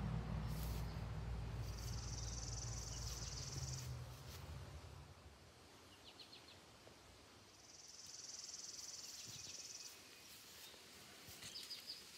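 An insect makes two high, buzzing calls, each about two seconds long and about six seconds apart. A low rumble fades away over the first four seconds, and a few faint short chirps come between and after the calls.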